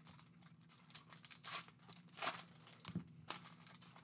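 Foil trading-card pack wrappers crinkling as they are handled, in a few short, faint rustles.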